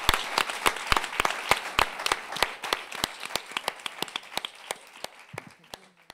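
Audience applauding, dense clapping at first that thins to scattered claps and fades, then cuts off suddenly.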